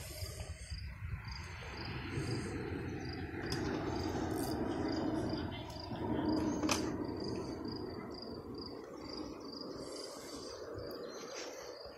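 A cricket chirping steadily, about three short chirps a second, over a louder low rushing noise that swells in the middle and then eases off.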